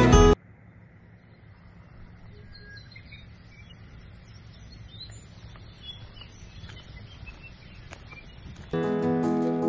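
Faint outdoor ambience with scattered short, high bird chirps and a few soft clicks. Background music cuts off just after the start and comes back near the end with plucked guitar.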